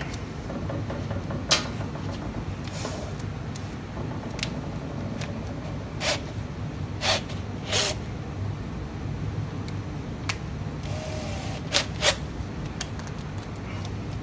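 Scattered sharp clicks and knocks of hand tools and a cordless drill being handled on a steel workbench, over a steady low shop hum; the drill is not running.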